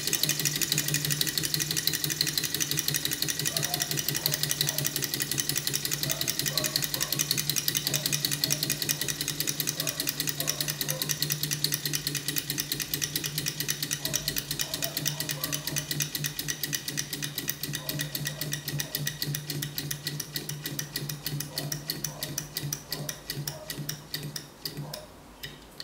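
A small all-metal walking-beam Stirling engine model running down: a fast, even mechanical clicking with a low drone slows and fades, the beats growing further apart, until the engine stops near the end.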